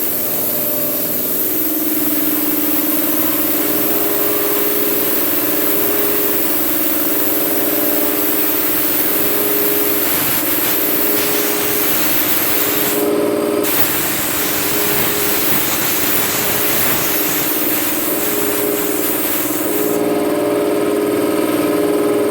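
North Star 2 hp 20-gallon vertical air compressor, its electric motor and oil-lubricated pump running steadily for the first time, with a loud hiss of air over the steady hum. The hiss is air escaping through the tank's bottom drain, which was left open; it drops out briefly about 13 seconds in.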